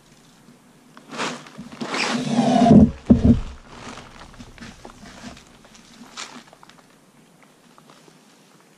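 A cordless drill runs for about two seconds, its whine rising, and ends in a couple of heavy knocks on the wooden stretching frame; lighter clicks and handling noises follow.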